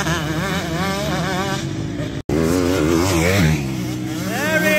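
Motocross dirt bike engines revving hard on a dirt track, their pitch rising and falling with the throttle and climbing near the end. The sound cuts out for an instant a little after two seconds in.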